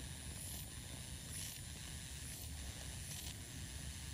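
Motorized FUE punch handpiece running during graft harvesting from the scalp: a faint steady high whine over a low hum, with a short high rise about once a second.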